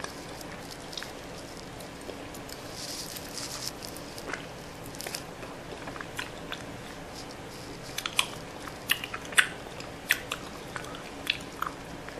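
Close-up chewing of a chewy mango mochi ice cream: mouth clicks and smacks, few at first and coming more often in the last few seconds.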